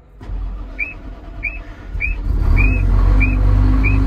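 Old Cummins diesel engine in a wheel loader cold-started: the starter cranks it for about two seconds, then it catches and runs on at a loud, steady idle. A short high chirp repeats about every two-thirds of a second throughout.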